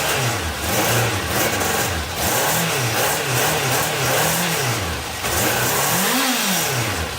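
Honda CB750 F2's inline-four motorcycle engine revved in about six quick throttle blips, its pitch rising and falling each time, with sharp pops among them. The popping follows a spark plug change on an engine that had been misfiring on one cylinder.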